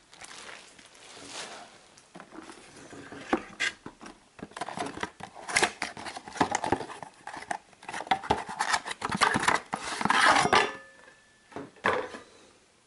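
Unboxing handling sounds: plastic wrap rustling around the dish, cardboard box flaps being pulled open, and light knocks and clinks as a metal mounting bracket is lifted out. The handling is irregular, busiest in the middle and dying down near the end.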